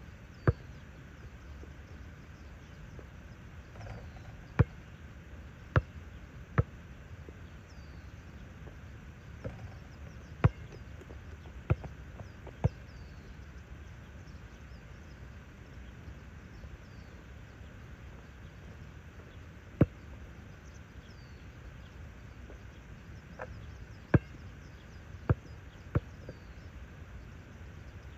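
Basketball bouncing on an outdoor hard court: about a dozen sharp single thuds at irregular gaps, most of them between about 4 and 13 seconds in and another group near the end, over a steady outdoor background hiss.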